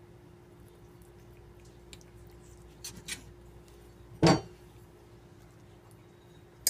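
Metal fork cutting into a slice of lasagna and knocking against the plate: a few faint clicks, one loud clink about four seconds in, and a sharp click near the end, over a steady low hum.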